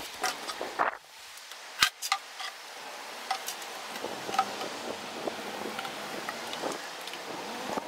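Scattered clicks and light knocks from handling a metal oil pail and its wire bail handle, with one sharp knock about two seconds in.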